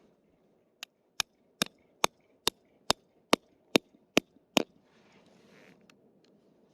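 Chopping: about ten sharp strikes at an even pace of a little over two a second, mostly growing louder, then stopping, with faint rustling around them.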